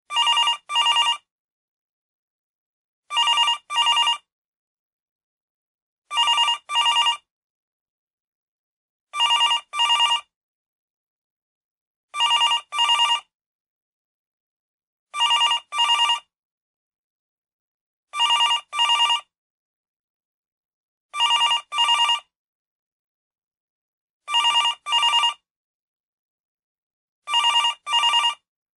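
Telephone ringing in a double-ring pattern: two short rings close together, then a pause of about two seconds, repeating steadily.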